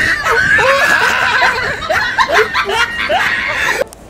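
Several voices snickering and chuckling together, cutting off suddenly near the end.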